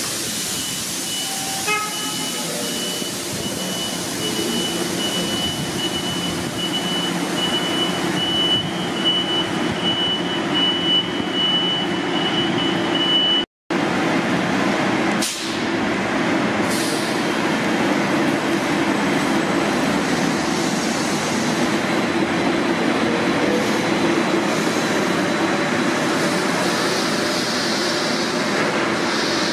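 Electric trolleybus (Neoplan trackless trolley) running in an underground busway: a steady hum, with a thin high tone through the first half. After a break about halfway through, the trolleybus pulls away with its motor hum continuing.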